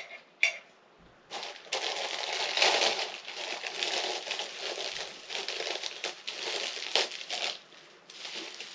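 Plastic packaging crinkling and rustling as a toy figure is unwrapped and handled, starting about a second in and going on unevenly almost to the end.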